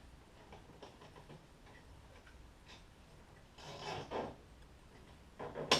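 Nylon zip tie being pulled tight around the end of a pull-strap hook, its ratchet clicking and rasping in two short pulls, the sharper one near the end.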